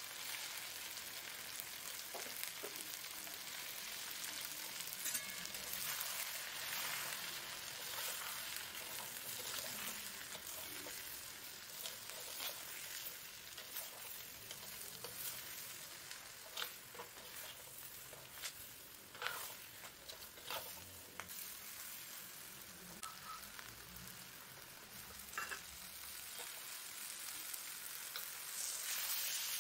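Brinjals and onions frying in oil in a black pot, sizzling steadily, with a spatula stirring and scraping against the pot now and then. Near the end the sizzle grows louder as tomato puree goes into the hot pot.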